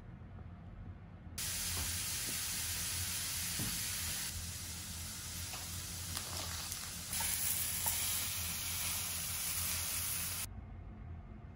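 Mushrooms sizzling in a frying pan: a steady frying hiss that starts suddenly, grows a little louder about seven seconds in, and cuts off suddenly near the end.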